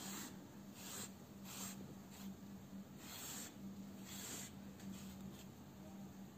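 Faint rustling and rubbing of wool yarn being pulled through crocheted fabric with a yarn needle while hands handle the stuffed piece: a handful of short scrapes, the longest a little after three and four seconds in, over a low steady hum.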